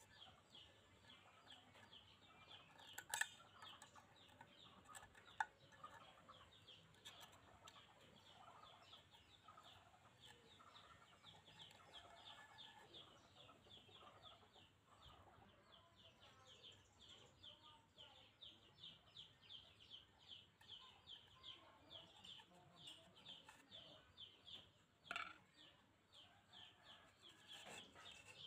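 Faint chickens in the background giving a fast, even series of short high chirps, about three a second. A few sharp clicks of rusty tin stove parts being handled.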